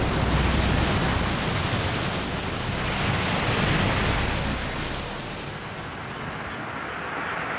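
Turbulent grey water surging and churning, a loud rushing noise with a deep rumble that fades away about five seconds in.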